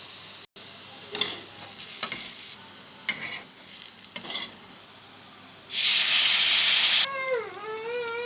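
Aloo dum (potato curry) cooking in a pan: a spoon scrapes and stirs in short strokes over a light sizzle. About six seconds in there is a loud burst of sizzling for about a second. Near the end a child's high wavering cry or voice is heard.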